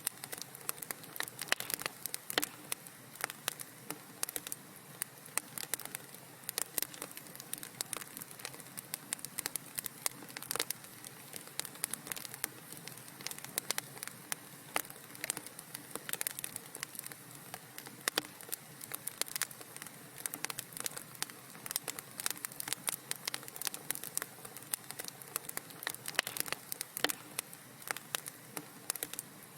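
Wood fire crackling steadily in a fireplace: dense, irregular small pops and snaps over a soft hiss.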